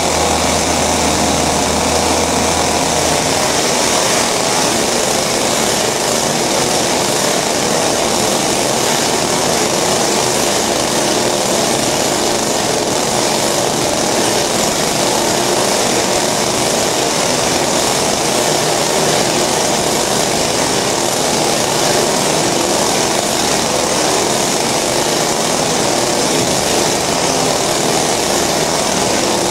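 Several ECHO two-stroke chainsaws running together, making a steady, loud high-pitched engine drone.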